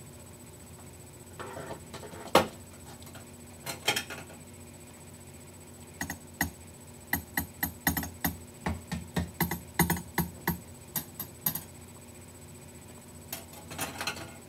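Bare hands slapping and clapping together. There is one sharp slap a couple of seconds in and two more near four seconds, then a quick run of about twenty slaps at roughly four a second, and a few softer ones near the end.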